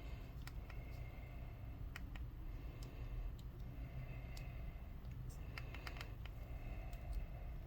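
Light, irregular clicks and taps from handling a GoPro camera and its plastic parts, over a low steady hum.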